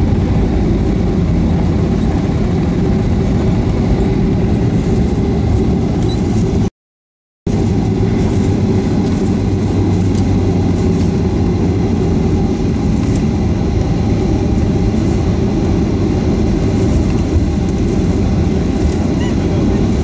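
Boeing 737-500 rolling out on the runway after touchdown, heard from inside the cabin: a steady, loud rumble of its engines and wheels as the jet slows. The sound cuts out for under a second about seven seconds in.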